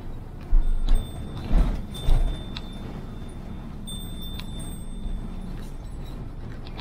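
A vehicle driving down a mountain road: steady road and engine rumble, with three heavy low thumps in the first couple of seconds and some light clicking and rattling.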